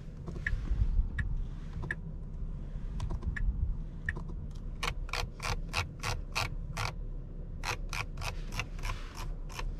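A regular series of sharp mechanical clicks, about four a second, starting about five seconds in and pausing briefly partway, over a low steady rumble.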